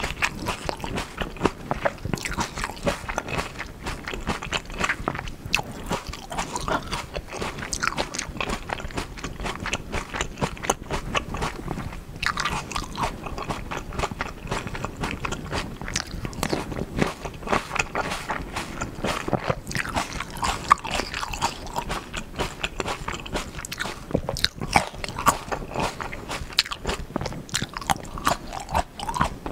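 Close-miked biting and chewing of Black Sapphire grapes, seedless and eaten with the skin on, heard as a dense, continuous run of small wet mouth clicks.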